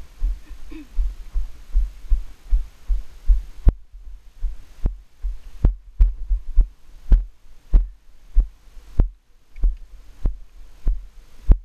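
Low thumps in a steady, rough rhythm from a helmet-mounted GoPro HERO 3 in its housing being jolted with each stride of a ridden horse. From a few seconds in there are sharper knocks about every two-thirds of a second.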